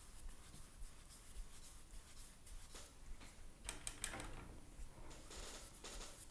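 Faint swishes of a wide flat hake brush stroking a watercolour wash across 100% cotton watercolour paper, a few irregular strokes, most of them around the middle.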